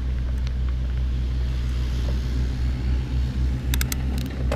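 Steady low drone of a mini excavator's diesel engine running, with a few sharp clicks near the end.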